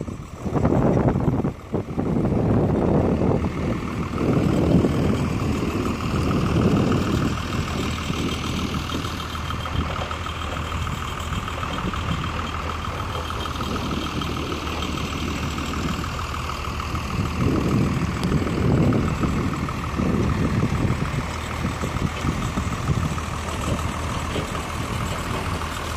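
A large engine running steadily with a constant drone and a steady whine above it, overlaid with uneven low rumbling.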